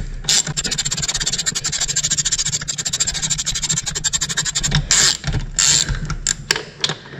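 Socket ratchet clicking rapidly as a freshly loosened bolt on an outboard motor is backed out. The fast clicking runs for about four and a half seconds, then comes in a few short bursts.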